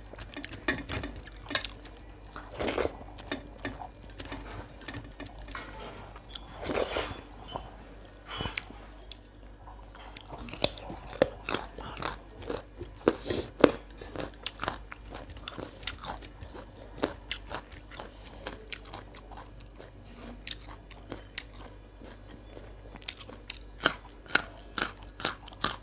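Close-miked eating sounds: a person chewing and crunching food, with many small irregular clicks and smacks of the mouth.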